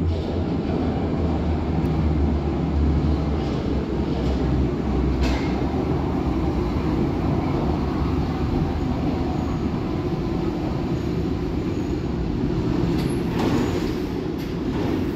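Berlin U-Bahn train running into an underground station and slowing to a stop, a steady low rumble of wheels on rails that echoes off the station walls. A few short sharp noises come near the end as it halts.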